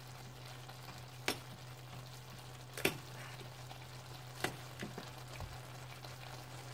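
A fork pricking green cheongyang chili peppers on a plate, its tines clicking sharply against the plate four times, about a second and a half apart. Underneath, a braise simmers faintly over a steady low hum.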